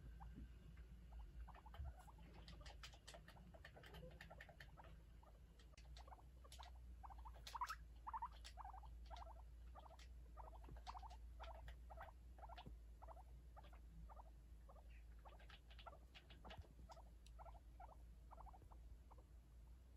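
Guinea pigs making faint, short squeaky calls, repeated about twice a second, with a few soft clicks among them.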